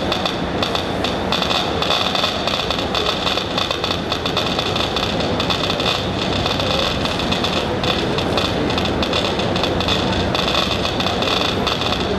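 Steady, loud rushing noise with no breaks, carrying a brighter hiss high up.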